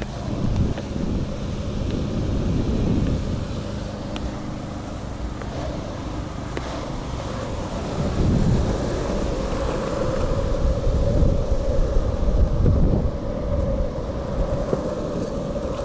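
Wheels rolling over asphalt, with wind on the microphone: a steady rumble, joined about halfway through by a faint steady tone.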